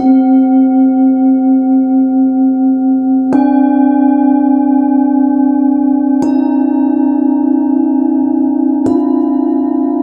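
Forged Tibetan singing bowls from a seven-note, one-octave set, struck one after another with a padded mallet. There are four strikes about three seconds apart. Each bowl keeps ringing and layers over the next, and the first tone wavers in a slow pulse.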